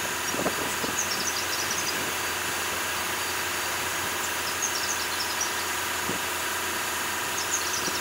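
AA4C AA-360RD touchless car wash machine running with a steady mechanical hum as its gantry moves over the car, with a few faint high chirps now and then.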